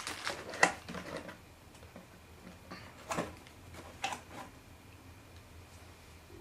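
Light clicks, knocks and rustles of an opened cardboard box and plastic-bagged accessories being handled and set aside: a little cluster in the first second, then single knocks about three and four seconds in.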